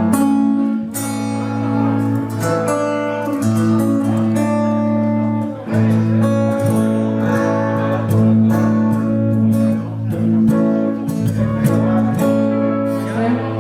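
Acoustic guitar strumming a slow song, chords ringing and changing every second or two.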